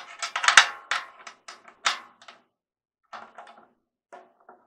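A quick run of sharp clicks and taps, then two shorter, softer clusters, as a DrumDial tension gauge is handled and set down on a 16-inch floor tom's drumhead, with a faint ring from the head under some taps.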